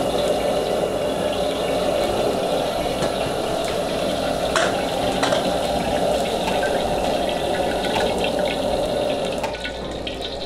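Gas wok burner running at high flame under an empty wok, a steady rushing noise with a few faint clicks, easing slightly near the end.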